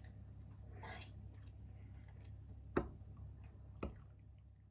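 Two sharp clicks about a second apart over a low steady hum, with a softer rustle shortly after the start; the sound fades out at the end.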